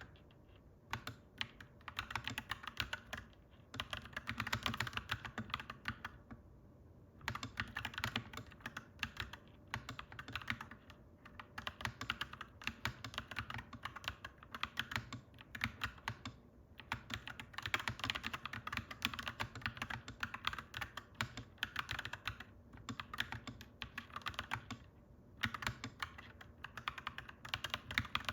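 Clacky mechanical keyboard being typed on in fast runs of keystrokes, with short pauses between the runs.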